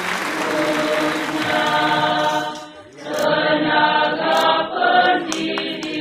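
A group of voices singing together in chorus, holding long sustained notes; the singing drops away briefly a little before halfway, then comes back.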